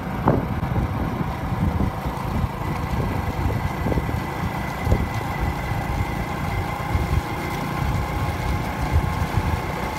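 Motorcycle running steadily while riding along a road: a steady engine hum under a rough, uneven low rumble of wind and road noise, with a few faint knocks.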